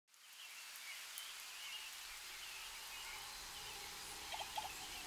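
Faint outdoor ambience fading in, with small birds chirping in the distance and a few short lower calls a little after four seconds.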